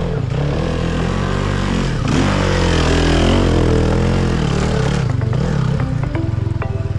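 Enduro motorcycle engine revving, its pitch rising and falling in the middle, then running steadier near the end with short clattering clicks.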